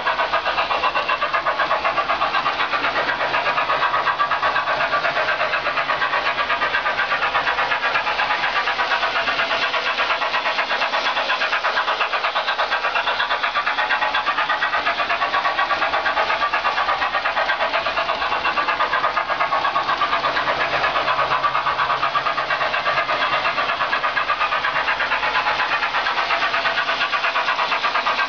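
Märklin BR10 model steam locomotive running on the layout, its built-in sound effects playing alongside the small motor and wheel noise. It goes as a steady run of rapid, even pulses with no pause.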